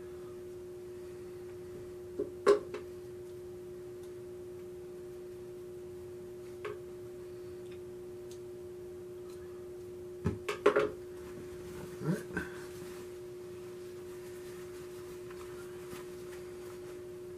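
A steady low hum throughout, with a few short clicks and knocks from hands working the fabric and threads at a treadle sewing machine: a pair about two seconds in, one near the middle, and a small cluster a little after that. The machine itself is not stitching.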